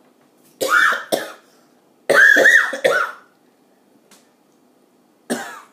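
Person coughing hard in three fits, with voice in the coughs, set off by a mouthful of dry ground ginger powder catching in the throat.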